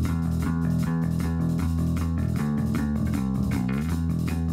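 Instrumental rock-style music with a bass guitar line, guitar and a steady drum beat.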